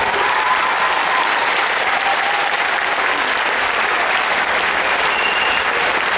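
Large theatre audience applauding steadily and loudly at the end of a performance.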